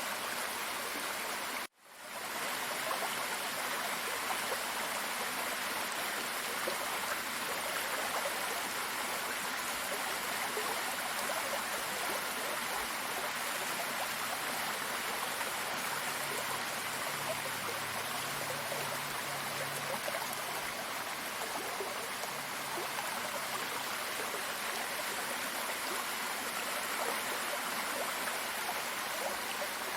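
Steady rushing of running water cascading over a waterfall. About two seconds in it cuts out abruptly for a moment, then swells back in.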